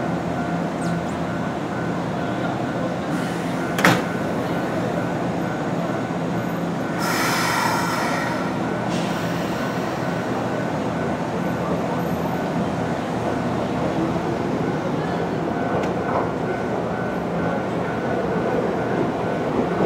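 Nankai Rinkan limited express electric train standing at the platform, its equipment giving a steady hum. A sharp click comes about four seconds in, and a hiss lasting about two seconds follows about seven seconds in.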